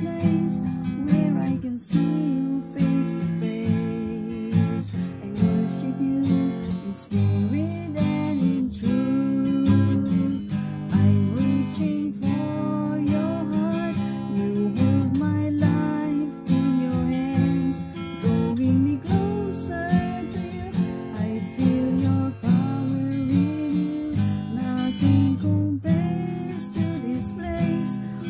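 A woman singing while strumming an acoustic guitar, the strummed chords steady under her sung melody.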